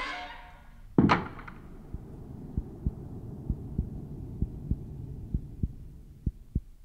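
A door slams shut about a second in, then a slow heartbeat sound effect starts: about five double thumps, roughly one a second, over a low hum.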